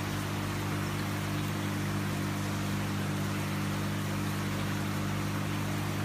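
Water sheeting down the glass panel of a floor-standing waterfall fountain: a steady rushing hiss, with a steady low hum underneath.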